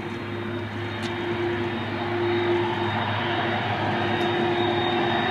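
Airbus A300-600ST Beluga's two GE CF6-80C2 turbofan engines at taxi power: a steady jet rumble with a thin high whine, growing slowly louder as the aircraft turns toward the listener.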